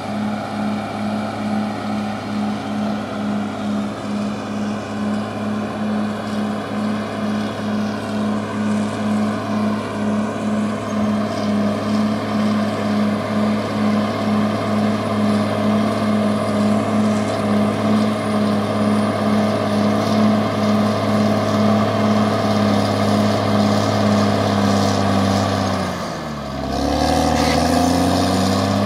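CAT D6R XL bulldozer's diesel engine running steadily with a regular pulse about twice a second. Near the end the engine pitch drops and then climbs back up.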